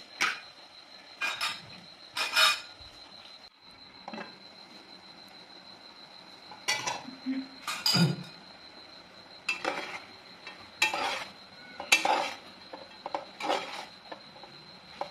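Metal spatula scraping and clinking against an aluminium pot while duck pieces with lemongrass are stir-fried, in short strokes about a second apart, with a pause of about three seconds after the first three.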